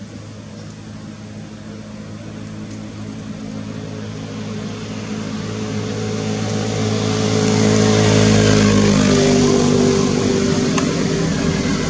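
A motor vehicle passing by: its engine hum grows steadily louder, peaks about eight or nine seconds in, and its note drops as it goes past, then starts to fade.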